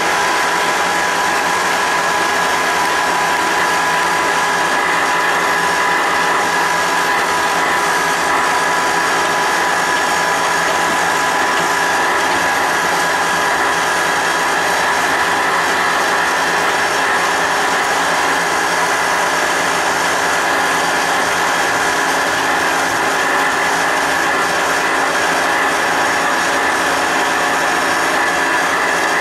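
Loud, unbroken construction machinery noise heard indoors through the building, nearly 90 dBA (against a permitted 45 dBA), a steady rushing hiss with a constant high whine over it.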